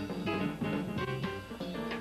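Jazz trio playing live, with a plucked upright bass walking out front among piano and drums.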